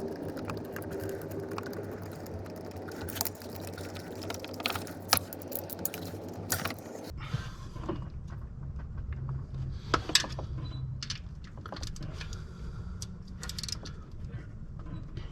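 Scattered metallic clicks and clinks of hand tools as the 10 mm bolts of a plastic thermostat housing are driven back in, with a ratchet wrench clicking. The background changes abruptly about halfway through.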